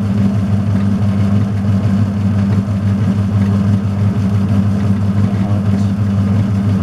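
Small metalworking lathe running steadily with a low, even hum, turning a steel shaft between centres while a cut is taken to bring it down to size.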